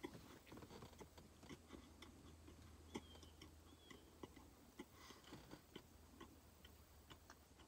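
Faint chewing of a dense, dry, crumbly chocolate protein brownie: soft irregular mouth clicks, a few a second.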